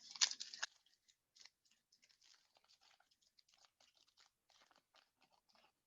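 Trading cards and their retail pack being handled. A short, crunchy burst of rustling comes right at the start, then faint, scattered clicks and rustles follow as the cards are slid through.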